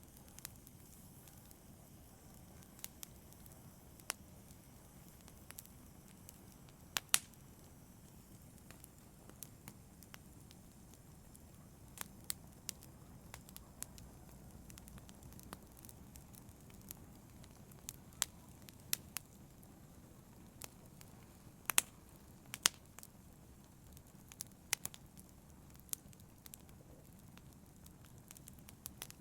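Wood fire burning in a fireplace, with a low steady rush of flame and irregular sharp crackles and pops from the burning logs, a few louder pops standing out.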